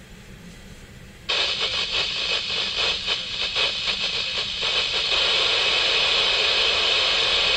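Radio scanner's squelch breaking open about a second in: loud static hiss, crackling for the first few seconds and then steady.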